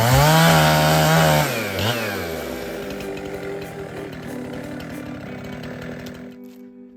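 Chainsaw engine held at full throttle for about a second and a half, then dropping back off the throttle. It runs on at lower speed and fades out near the end.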